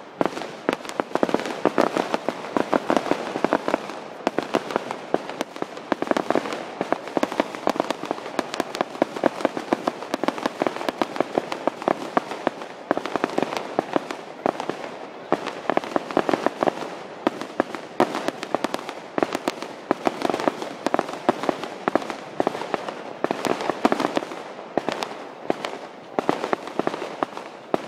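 Fireworks display: a continuous barrage of booming shell bursts and crackling, many sharp bangs a second, picked up on a phone's microphone.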